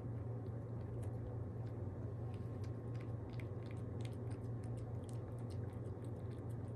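A pet chewing and licking wet food, with quick irregular wet smacks and clicks of the mouth, over a steady low hum.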